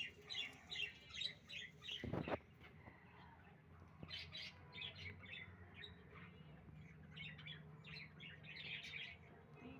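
Small birds chirping in quick runs of short, high notes, thick in the first two seconds, then again more softly from about four seconds in. A short thump comes about two seconds in.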